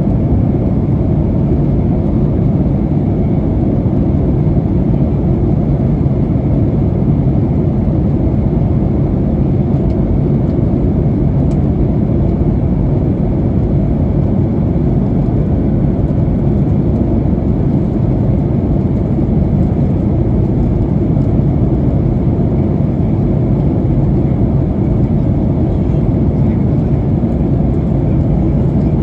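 Boeing 737-900ER jet airliner heard from inside the passenger cabin in flight: a loud, steady, low drone of engine and airflow noise with a faint steady hum.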